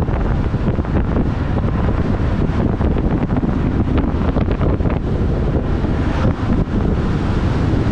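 Wind noise on the microphone of a camera riding on a moving vehicle, a loud steady rush that is heaviest in the low end, mixed with road noise.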